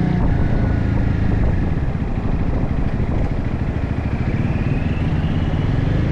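Motorcycle riding along, its engine running under heavy wind rumble on the microphone. The engine note climbs about four seconds in.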